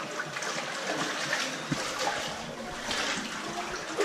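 Water running through a narrow rock tunnel channel, with splashing that swells every second or so as someone wades through it.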